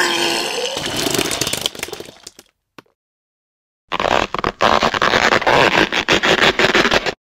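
Two separate sound effects cut one after the other. The first is a sudden burst with a brief rising tone at its start that fades away over about two and a half seconds. After a short silence comes a rapid, engine-like rattling pulse that lasts about three seconds and stops abruptly.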